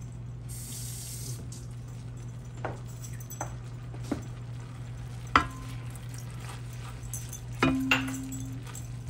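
Silicone spatula stirring gravy in a nonstick pan, with a few separate knocks of the spatula against the pan. The loudest knock comes about five seconds in, and another knock near eight seconds leaves a brief low ring. A steady low hum runs underneath.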